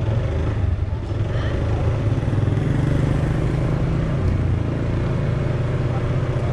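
Motorbike engine running at low, steady cruising speed, heard from the rider's seat over street noise; the engine note drops a little about four and a half seconds in as the bike eases off.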